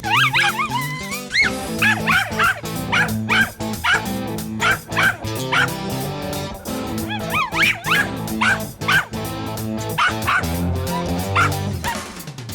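Mountain Feist dog barking in quick, high yelps, about two a second, over background guitar music.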